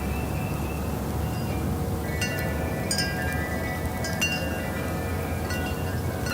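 Wind chimes ringing, struck again and again, with several notes that ring on and overlap, over a steady low rumble.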